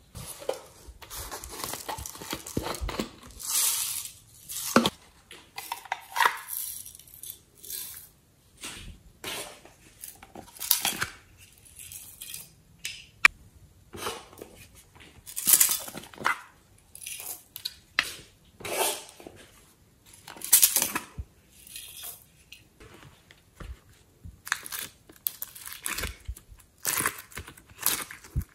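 Hands handling plastic and glass containers and slime ingredients: an irregular clatter of clicks and knocks with crinkly rustling in between.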